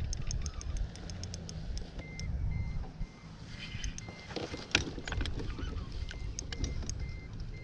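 Wind on the microphone and handling knocks in a small fishing boat while a hooked bass is being fought to the boat, with the sharpest knock near five seconds in. A run of faint sharp clicks and a faint high beep repeating on and off run underneath.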